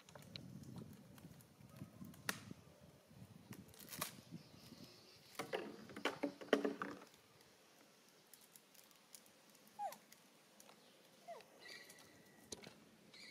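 Thin plastic water bottle crinkling and crackling as a young macaque bites and squeezes it, with scattered clicks and a dense burst of crackling about five to seven seconds in. Two brief squeaks follow later.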